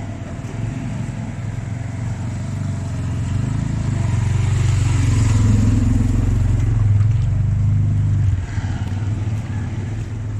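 A motor vehicle running: a steady low rumble that grows louder from about four seconds in and drops off suddenly a little past eight seconds.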